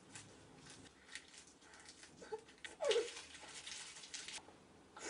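Crisp lettuce leaves crackling as she stuffs them in and chews, in faint scattered crunches. About three seconds in comes a louder burst of crunching with a short falling whimper-like sound.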